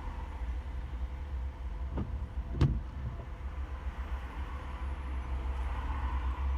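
A car driving in slow city traffic: a steady low engine and road rumble with a faint hiss over it. There is a faint tick about two seconds in and a sharper knock just after, the loudest sound.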